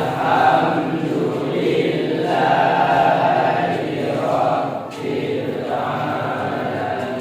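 A class of students reciting a prayer aloud together in unison, a chanted group recitation in drawn-out phrases that swell and fade.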